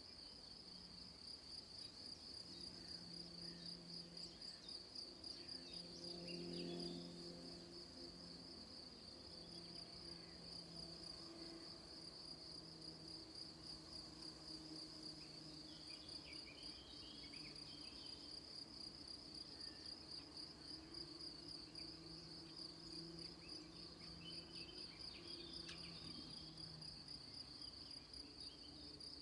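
Crickets chirping in a steady, continuous high trill, with a faint low drone beneath.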